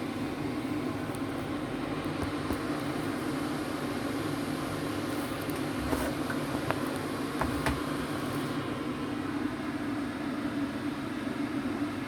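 Steady machine hum with a hiss, with a few faint clicks about six to eight seconds in.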